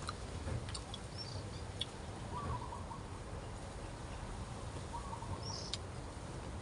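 Wind rumbling on the microphone, with scattered light clicks and two short bird chirps, about two seconds in and again about five seconds in.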